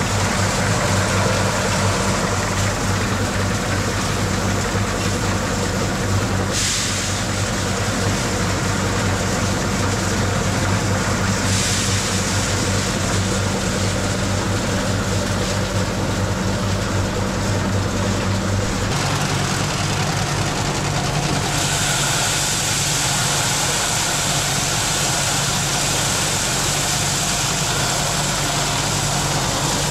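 A machine engine running steadily with a loud, constant hum; the pitch of the hum shifts about nineteen seconds in.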